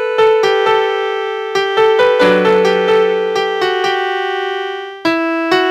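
A 61-key Global portable electronic keyboard playing a piano voice: a slow melody over chords, each note struck and then decaying. A fresh chord is struck near the end.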